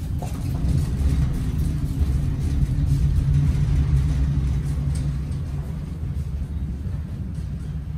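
Loaded wire roll cage being pushed across a trailer floor, its casters rolling with a low, steady rumble that fades near the end.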